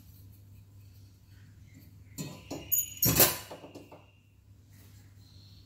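Metal burner caps and parts of a gas hob being set back in place: a few light clinks about two seconds in, then a louder metallic clatter that rings on briefly.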